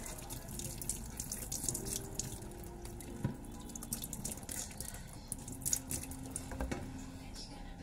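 Water running from a tap into a sink, splashing over hands held under the stream.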